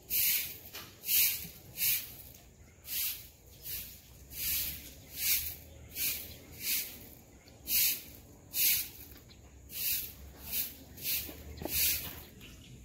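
Broom sweeping pavement in brisk, regular strokes, a short swish roughly every second.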